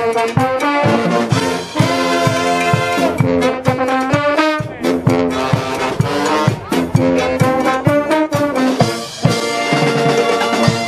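Brass band music, trombones and trumpets playing a melody over a steady drum beat.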